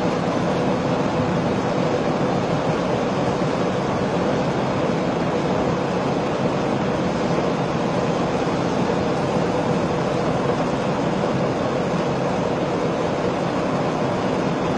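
A steady, even mechanical drone with a constant hum in it.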